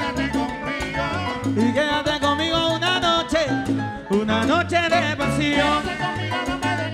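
Live salsa band playing, with a repeating bass line and percussion under wavering sung vocal lines.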